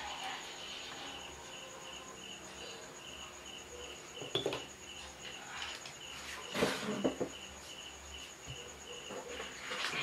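A cricket chirping in a steady run of evenly spaced high pulses, with a faint steady higher whine above it. Short knocks and rustles of wires and parts being handled on a wooden workbench come about four and a half seconds in, with a louder clatter around seven seconds.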